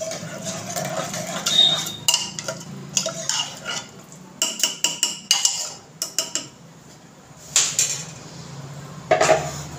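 A ladle stirring rice and water in a pressure cooker, scraping and clinking against the pot many times, thinning out after about six seconds, with a louder clatter near the end.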